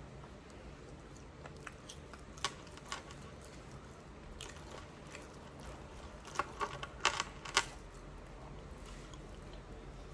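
Scattered light clicks and clinks over a low steady hum, with a quick run of about six sharper clicks a little past the middle.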